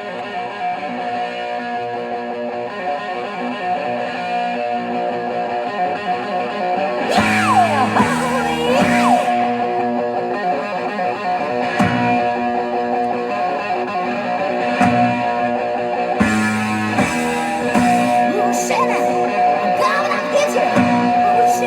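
Guitar music playing from a vinyl record on a turntable, heard through an amplifier and speakers, with bending guitar notes and a few drum hits.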